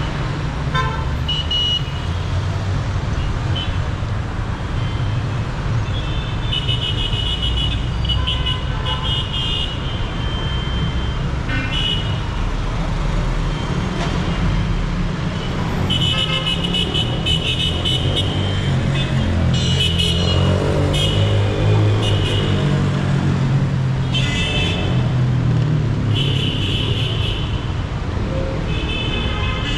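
Dense city traffic: a steady rumble of car, bus and motorbike engines, with many short car horn toots and honks scattered throughout.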